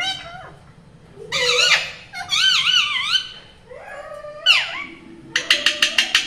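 Pet rose-ringed parakeet calling and warbling. A call comes about a second in, then a run of wavy warbling notes and a falling whistle. Near the end comes a quick string of about seven sharp squawks.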